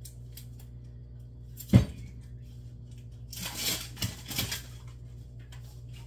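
Plastic drink-mix canisters being handled at an aluminium stockpot. There is one sharp knock a little under two seconds in, and about a second of scraping and rustling near the middle, over a steady low hum.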